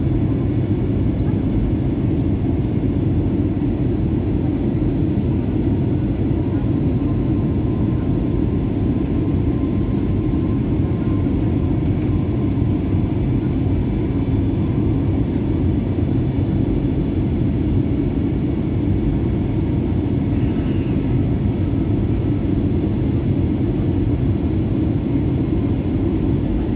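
Steady low rumble of an airliner's engines and airflow heard inside the passenger cabin, even throughout with no sudden changes.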